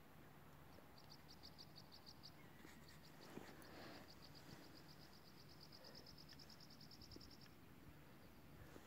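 Faint, high-pitched trill of an animal, a rapid run of short chirps about eight a second, heard twice: a short run about a second in, then a longer one from about three seconds in, over quiet outdoor background.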